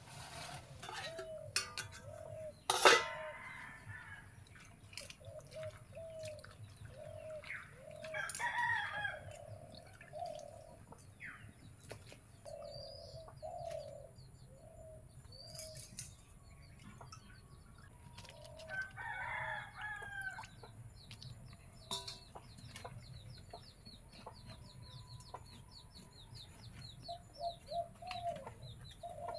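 Domestic chickens clucking repeatedly, with a rooster crowing twice, about 8 seconds in and again about 19 seconds in. A single sharp clack sounds near 3 seconds, and small birds chirp faintly through the second half.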